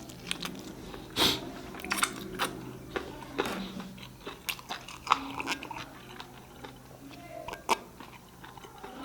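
Close-miked eating sounds: chewing and biting on chicken curry, tofu and rice, with irregular mouth clicks and crunches, the sharpest about a second in and near the end.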